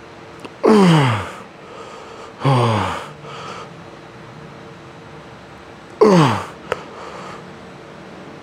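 A man's loud groans of effort from a set of leg extensions: three short groaning exhales, each falling in pitch, about a second, two and a half and six seconds in.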